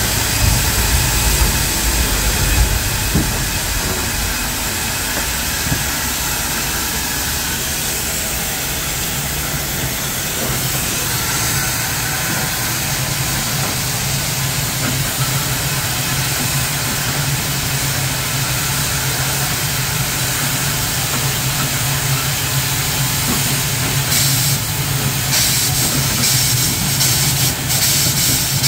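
A steam locomotive, out of service for the day, hissing loudly as steam vents from low down beside its wheels. A steady low hum runs beneath the hiss, and near the end the hiss surges and flutters in quick pulses.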